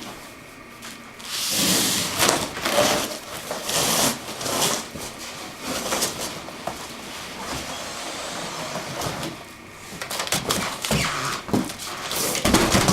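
Cardboard scraping and rustling as a guitar combo amp in its inner box is worked out of a shipping carton, with scattered knocks and bumps; the louder stretches of scraping come about a second and a half in, around four seconds in and again near the end.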